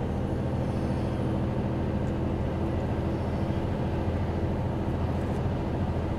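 Diesel engine of a 40-tonne Mercedes-Benz articulated lorry pulling hard under full throttle, heard from inside the cab as a steady low drone with no change in pitch, along with road noise.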